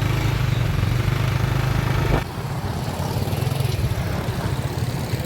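Motorbike engine running steadily on the move, with a brief knock about two seconds in.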